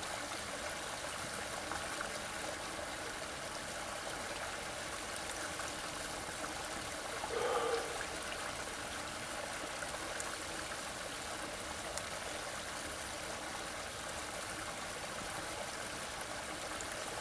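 Small creek waterfall, water falling and running steadily. A brief louder sound comes about halfway through.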